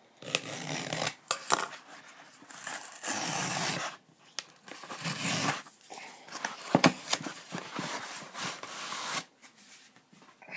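Cardboard mailer envelope being slit open with a pocket knife and torn apart: irregular bursts of cardboard scraping and tearing, with a few sharp clicks and snaps.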